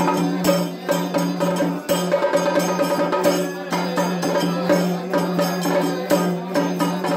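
Kerala temple drumming: a chenda beaten with sticks and a small hand drum playing a fast, steady rhythm, over a steady droning tone.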